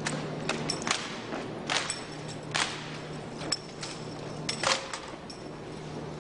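A drill team's rifles and boots at work: a string of sharp slaps and clacks at uneven intervals, a few leaving a brief high metallic ring, over a steady low hum.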